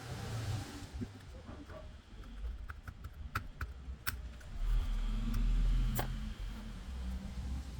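Workbench handling noise: a run of short sharp clicks in the middle, a low bump about five seconds in, and one more sharp click about a second later.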